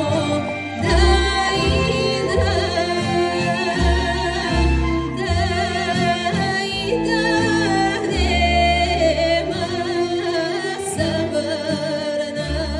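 A woman sings a Bulgarian folk song in a wavering, ornamented voice, accompanied by a folk music orchestra with a moving bass line.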